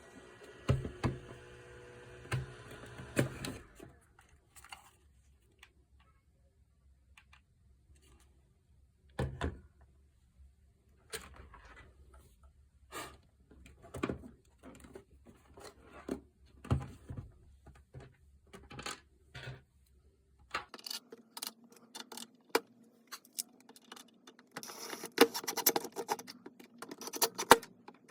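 Irregular clicks, taps and light knocks of small hard parts being handled. About two-thirds of the way through, a steady low hum starts up under busier clicking and rattling.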